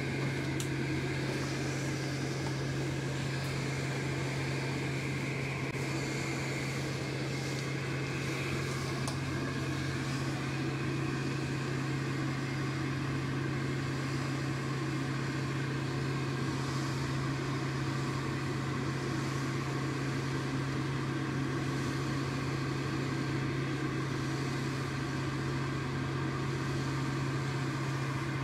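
Steady drone of an electric air blower running without change, with a constant low hum and a few faint ticks in the first ten seconds.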